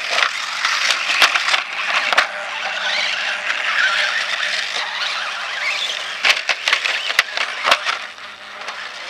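Atomik Metal Mulisha MM 450 RC motorcycle running over grass and dirt, its motor whining as it rises and falls in pitch. Sharp knocks come from its bumps, and a cluster of them in the last few seconds marks it tumbling over.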